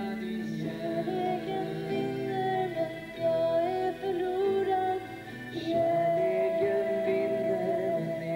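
Acoustic band playing: strummed acoustic guitars and a piano accordion with long held notes, and a man singing the melody.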